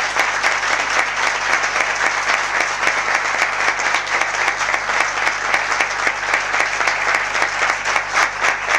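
Audience applauding, a dense and steady round of clapping.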